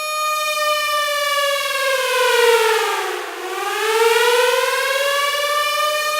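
Civil defense (air raid or tornado) siren wailing. It holds a high tone, then its pitch sags to a low point a little past halfway through and climbs back up to the high tone near the end.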